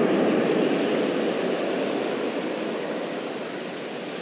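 Steady rush of ocean surf breaking on the beach, mixed with wind on the microphone, easing off slightly toward the end.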